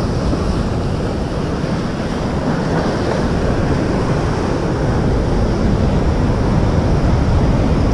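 Ocean surf breaking and washing over shoreline rocks, a steady rush, with wind buffeting the microphone.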